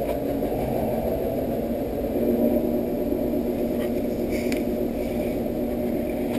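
A steady low mechanical whirring hum, with a few faint clicks from thin wires being handled.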